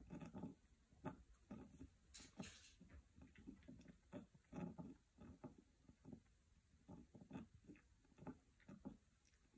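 Faint crunching and crackling from a pet rabbit chewing hay, in an irregular string of soft crackles a few times a second, with a brief rustle about two seconds in.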